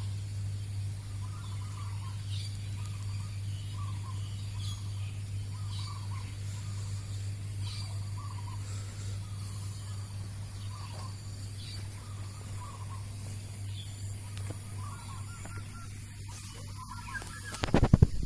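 A zebra dove (perkutut) cooing in short repeated phrases about once a second, with fainter high chirps from another bird, over a steady low hum. A loud burst of noise comes near the end.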